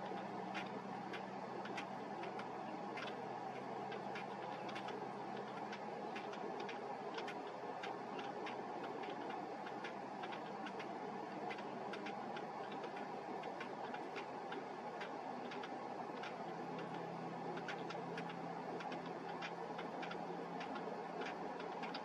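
Rapid, irregular sharp ticking, several ticks a second, over a steady background hum.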